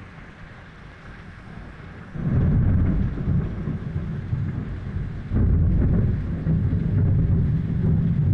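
Rain falling steadily, then about two seconds in a loud, deep rumble of thunder sets in suddenly. It eases briefly and swells again about five seconds in.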